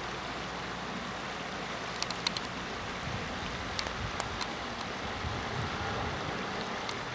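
Shallow creek water running over stones in a riffle, a steady rushing, with a few sharp ticks about two seconds in and again around four seconds.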